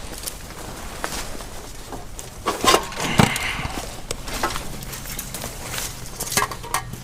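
Scrap steel pieces being handled and loaded: scattered knocks and clanks, the loudest a couple of clanks with a brief metallic ring about three seconds in.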